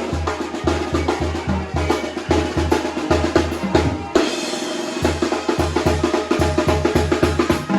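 Sinaloan banda music: brass band playing a son, with a steady pulsing low bass line under brass and drums. The bass drops out briefly about four seconds in, then comes back.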